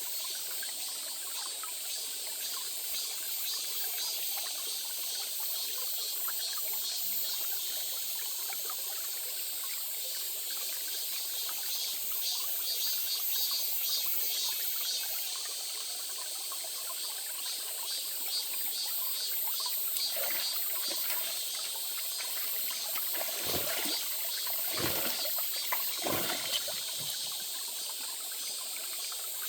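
A small stream or brook trickling and babbling steadily. Near the end come a few short, dull low thumps.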